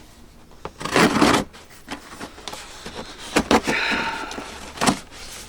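Cardboard box and packaging being opened and handled: a loud scraping rustle about a second in, then a few sharp knocks and more rustling.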